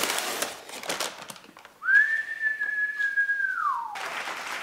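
A paper bag crinkles as a pan is pulled out of it, then a single long whistled note swoops up, holds steady for about two seconds, and slides down at the end.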